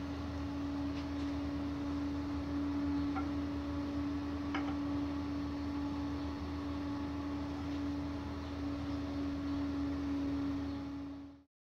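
A steady electrical or motor hum with one constant tone over a lower drone, a few faint light clicks scattered through it, cutting off abruptly near the end.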